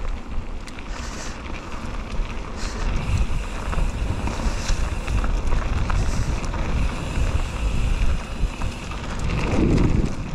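Wind buffeting the microphone of a helmet or bike-mounted action camera on a moving mountain bike, a steady low rumble with a few sharp clicks from the bike on the trail.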